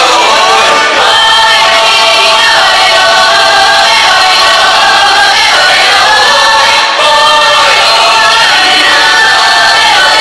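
Tamburica ensemble playing Croatian folk music, with a group of voices singing together.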